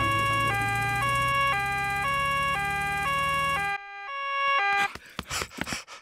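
Cartoon ambulance two-tone siren (nee-naw), switching between a high and a low note every half second, over a low hum. The hum cuts off a little under four seconds in, and the siren stops about a second later.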